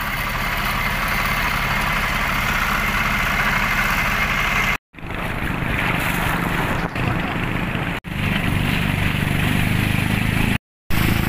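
An engine running steadily with an even low hum, cutting off abruptly three times.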